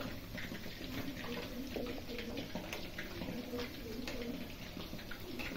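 Chicken pieces deep-frying in hot oil in an iron kadai: a steady sizzle scattered with small crackles and pops as a spoon turns them.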